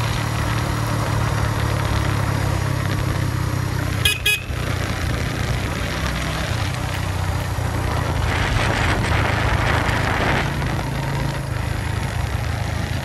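Suzuki GS150 motorcycle's single-cylinder four-stroke engine running steadily under way, with a horn giving a short double toot about four seconds in. A louder rushing noise swells for about two seconds past the middle.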